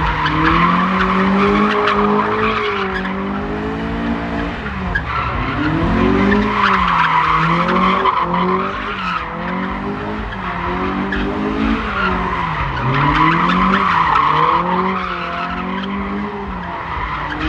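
A car drifting: its engine revs rise and fall over and over while the tyres screech in long spells of wheelspin.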